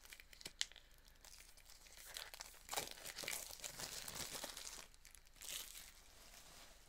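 Funko Soda can packaging being crinkled and torn by hand, with a sharp click about half a second in. The rustling comes as a longer stretch from about two to five seconds in, then one short burst.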